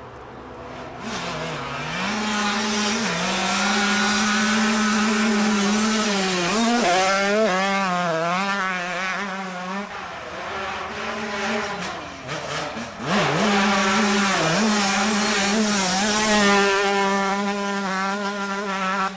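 Honda CR125 two-stroke motocross bike engine revving hard and easing off, its pitch rising and falling with the throttle. It grows loud after the first couple of seconds, drops back between about ten and thirteen seconds in, then is loud again.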